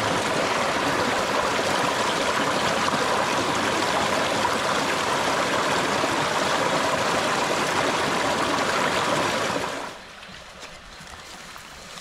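River water rushing in a steady, loud flow; about ten seconds in it drops abruptly to a much quieter background.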